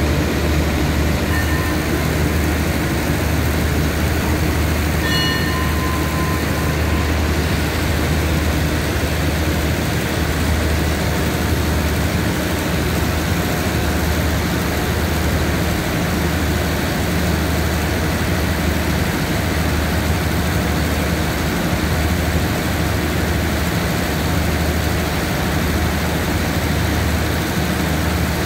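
Diesel engines of a passenger train standing at a station platform, idling with a steady low hum.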